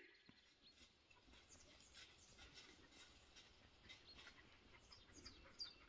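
Near silence with faint bird chirps: a few short, high, falling calls that come more often near the end.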